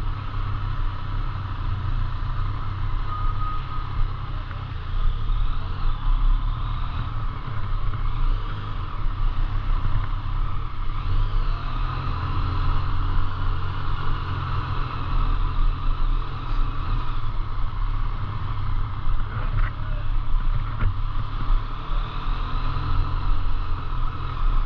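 A road vehicle driving steadily: a continuous low rumble of engine and road noise with a steady hum above it.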